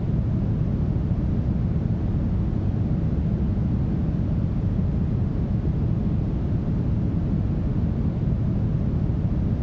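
Smoothed brown noise: a steady, deep, even hiss with most of its weight in the bass and little treble, unchanging throughout.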